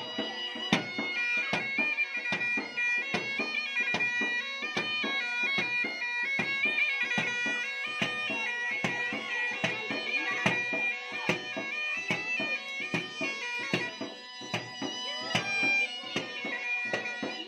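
Bagpipe playing a melody over a steady drone, with a small drum beaten with a stick in a regular beat.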